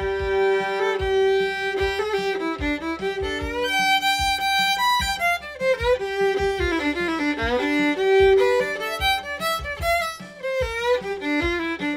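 Solo fiddle playing a bluegrass break: improvised licks in the last part of the tune leading into the ending lick, with some notes slid into.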